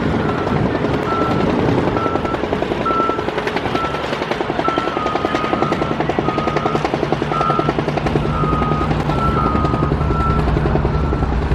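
Construction-machine backup alarms beeping steadily, two alarms at slightly different pitches overlapping, over a loud, fast-pulsing rumble.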